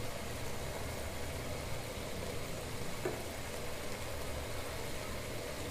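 Steady low rumble with an even hiss, with a faint click about three seconds in.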